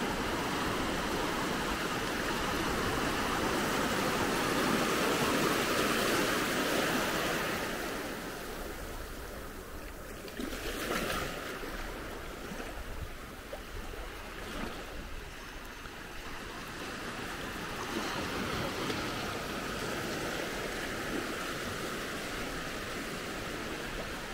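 Ocean surf: small waves breaking and washing up over a shallow sandy shore, a steady rush that is louder for the first several seconds, then eases, with brief swells of wash a few times.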